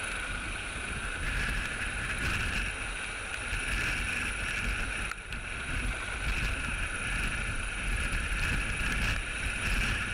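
Helicopter hovering overhead: a steady turbine whine and rotor noise, with the rotor downwash buffeting the microphone in a low, fluttering rumble.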